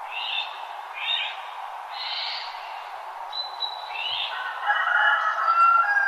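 Birds singing in a dawn chorus over a steady background hiss: a few short chirps about a second apart, a thin high whistle near the middle, then a louder warbling song lower in pitch from about four and a half seconds in.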